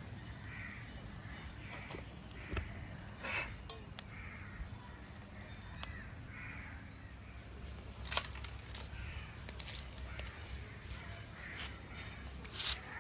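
Crows cawing repeatedly, with a few sharp clicks and knocks in between.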